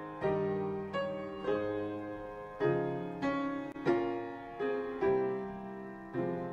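Piano playing a slow run of struck chords, about ten in all, each one ringing and fading before the next.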